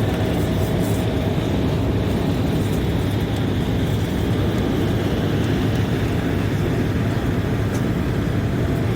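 Steady cabin noise of an Embraer E190 airliner in flight: a constant rush of engines and airflow, deepest in the low end.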